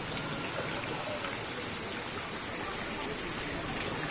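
Steady hiss of rain and running water on a flooded street, with faint voices in the background.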